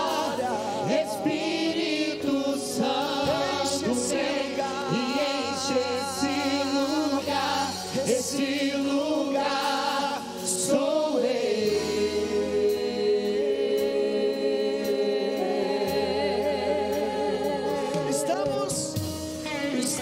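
A worship team of several voices singing a Portuguese-language gospel worship song together, with strong vibrato, over steady sustained backing chords. About halfway through the level dips briefly, then the singers hold long notes with vibrato.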